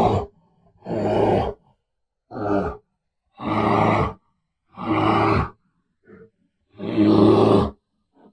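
Bear roaring in a series of short, deep roars, about six in all, each under a second long with silent pauses between them.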